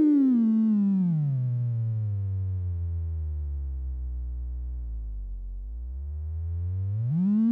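Erica Synths Polivoks VCF self-oscillating at high resonance, giving a clean sine-like tone. Its pitch glides steadily down to a deep hum a little past the middle, then sweeps back up near the end as the cutoff is turned.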